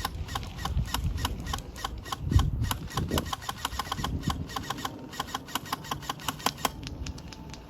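A vehicle engine running as it passes close by, under a rapid run of sharp clicks, several a second, from airsoft guns firing on full auto. The clicks thin out near the end.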